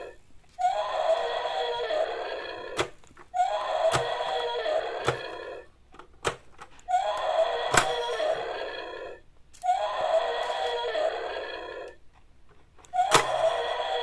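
The same pitched, buzzy toy sound effect plays five times, each about two and a half seconds long with short gaps between, starting sharply and fading away. Sharp clicks come near the starts.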